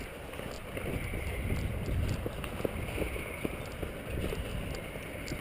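Wind rumbling on the microphone, with a few faint, irregular clicks.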